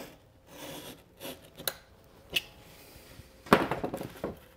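Workbench handling noise: a few light clicks and taps, then a louder clattering knock about three and a half seconds in, as a hard object is set down or knocked.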